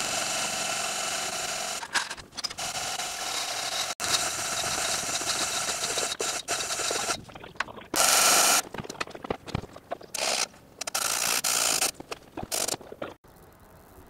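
Building work noise in short blocks that cut in and out abruptly: a steady scraping, machine-like noise, loudest for about half a second around eight seconds in.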